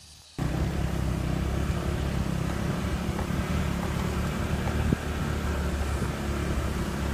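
Motor scooter engine running steadily while riding, with a heavy low rumble; it starts abruptly about half a second in.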